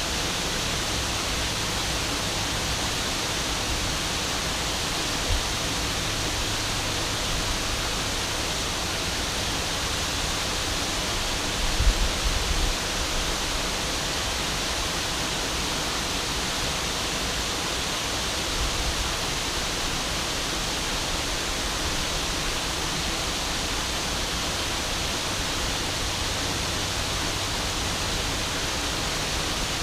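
River waterfall pouring in a steady, even rush. A few brief low thumps break through, the strongest about twelve seconds in.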